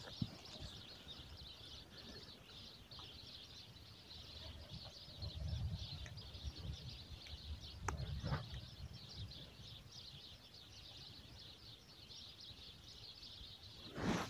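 Birds chirping in a dense, continuous chorus of high notes. Two low rumbles on the microphone come around the middle, with a sharp click near the second.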